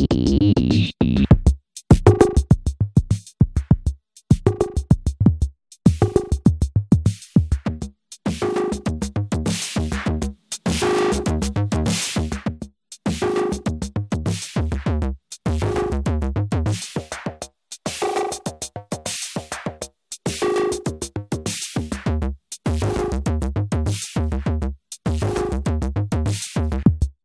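Electronic drum machine beat played through an Alesis Ineko multi-effects pedal while its effect knobs are turned. The pattern comes in choppy blocks of rapid hits, each a second or two long, broken by short gaps.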